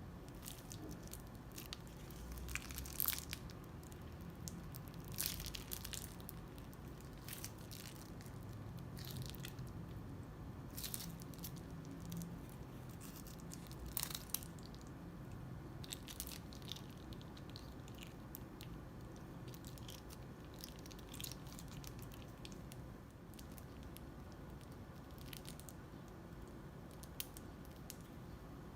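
Crunchy slime being squeezed and pressed by hand, with irregular bursts of crackling and popping every few seconds.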